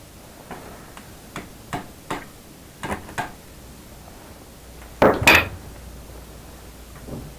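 Metal hand tools clinking and clattering against each other as they are handled, a few light clinks over the first few seconds and a louder clatter about five seconds in.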